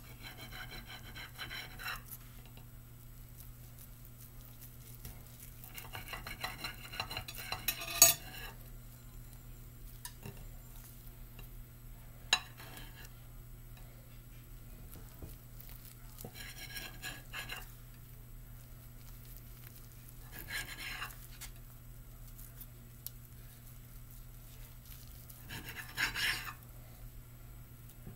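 A knife sawing through a nori-wrapped sushi roll in about five short bouts of cutting, with a few sharp clicks of the blade against the platter beneath.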